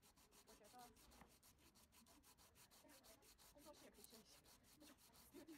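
Faint, quick rubbing strokes of a small hand-held block worked back and forth along the edge of a wooden stool seat, at about four strokes a second.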